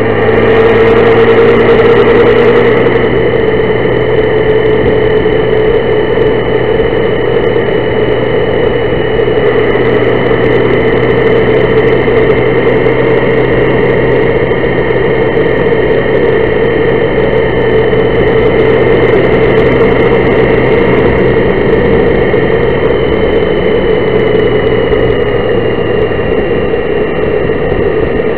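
Honda Gold Wing motorcycle riding at a steady cruise: a steady engine drone with road noise, heard from the moving bike, a little louder in the first few seconds.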